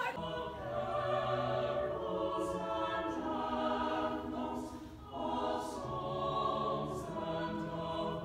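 A mixed choir singing held chords in several parts, with a short break between phrases about five seconds in.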